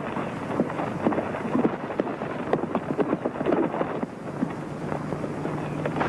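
Hoofbeats of two horses on the move, a quick irregular clatter of many hoof strikes.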